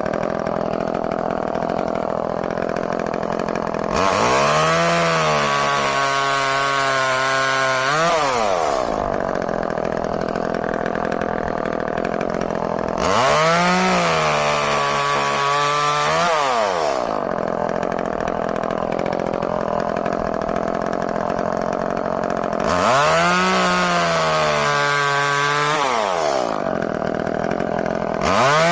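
Echo CS-305 30cc two-stroke chainsaw idling between three short bursts of full throttle, each about four seconds long. In each burst the engine pitch sags as the chain bites into the log, then rises again before the saw drops back to idle. A fourth burst begins at the very end.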